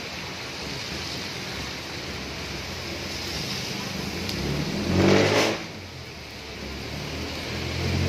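Steady rain on a wet street, with a motor vehicle passing close by about five seconds in: its engine and the hiss of tyres on the wet road swell to the loudest point and then cut off quickly. A second vehicle approaches near the end.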